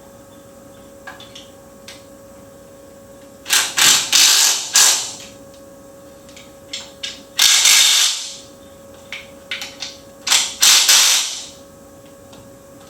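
A power ratchet runs on bolts in three bursts of about a second each, snugging the transmission into place. Short tool clicks come between the bursts, over a faint steady hum.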